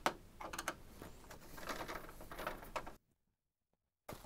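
Screwdriver working a screw out of a plastic inkjet printer case: sharp clicks followed by scraping and rattling of the plastic. About three seconds in, the sound cuts to dead silence for a second, then the handling noise resumes.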